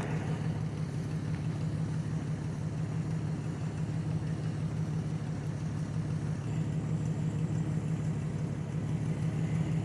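Vehicle engine running steadily at low revs, a constant low drone with no revving.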